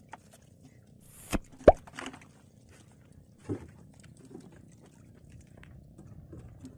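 A few short plops and sharp knocks of water and gear on a small wooden outrigger fishing boat. The loudest is a sharp hit nearly two seconds in, with a smaller one about three and a half seconds in, over a low steady sea background.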